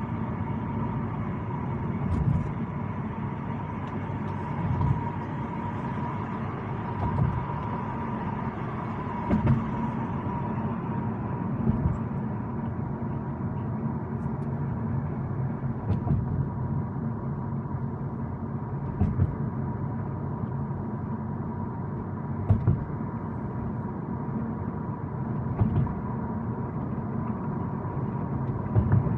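Steady low rumble of a car driving, heard from inside the cabin, with short thumps every few seconds and a faint steady tone.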